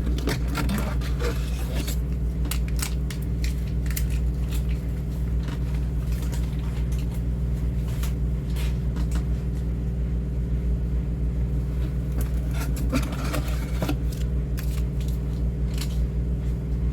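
A steady low mechanical hum throughout, with scattered clicks, crackles and light knocks of cat food packets and cans being handled.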